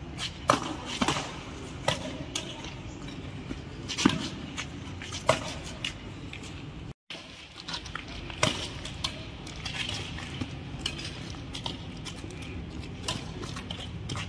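Badminton rally: sharp clicks of racquets striking a shuttlecock at irregular intervals, a second or so apart, with a brief cut-out of the sound about halfway through.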